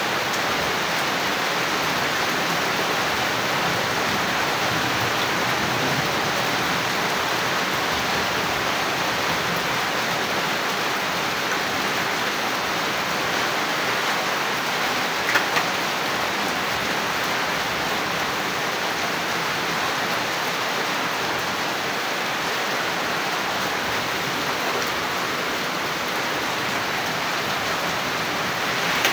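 Heavy rain falling steadily on roofs and puddled ground, with water running off the roof edges. A brief sharp sound stands out once about halfway through.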